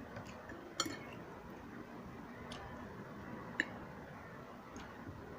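Eating instant noodles: about four light, sharp clicks of a utensil against a dish, spaced a second or so apart, over faint room noise.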